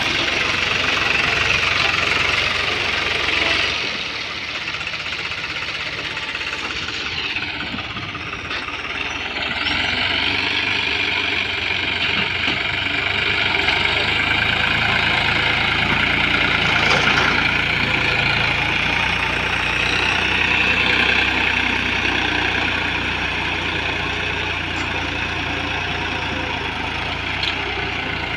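Diesel tractor engine running steadily, easing off for a few seconds and then pulling harder again.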